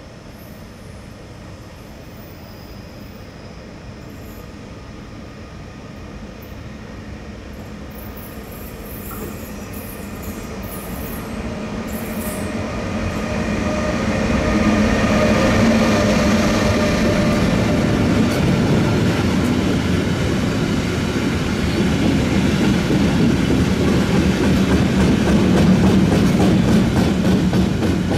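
ÖBB Taurus electric locomotive approaching with a freight train of covered wagons. The sound grows steadily louder as it nears and passes about halfway through. After that the long line of wagons rolls past with a steady loud rumble of wheels on the rails.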